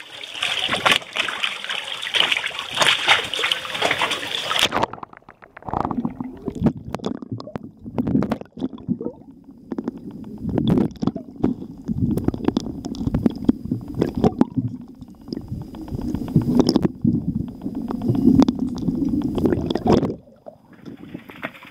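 Seawater splashing around a handheld camera at the surface, then, about five seconds in, the camera goes under: muffled underwater sloshing and rumbling with many sharp clicks and knocks. Near the end it quietens as the camera comes back toward the surface.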